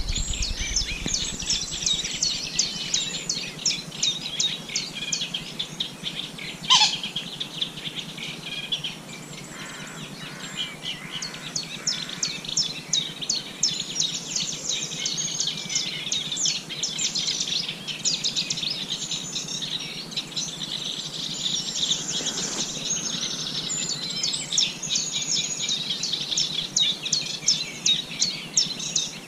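Songbirds singing, many rapid high chirps and trills overlapping without a break. A single sharp click sounds about seven seconds in.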